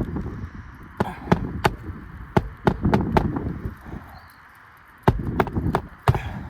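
Sharp knocks in quick runs of three, a hammer striking a flat pry bar under asphalt roof shingles to pop the nails, with rough scraping and rustling between the runs.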